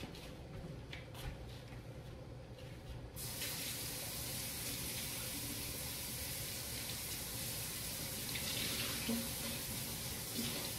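Kitchen tap turned on about three seconds in, water then running steadily into a sink. A few light clicks come before it.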